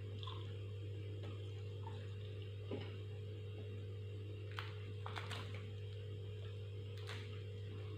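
A few soft clicks and smacks of someone eating, scattered over a steady low electrical hum.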